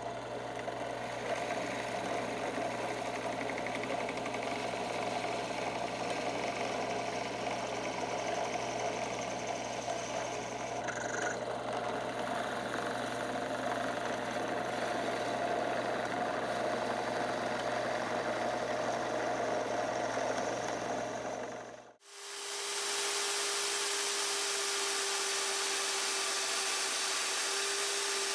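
A benchtop drill press runs with a steady motor hum as its bit bores pin holes through knife handle scales. About 22 seconds in, the sound cuts off and a band saw takes over, running with a steady whine while the pinned handle scales are fed against its blade.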